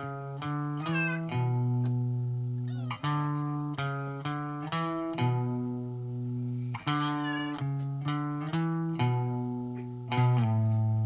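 Background music led by a guitar: plucked notes ringing and fading one after another over low bass notes, a few with wavering high bends.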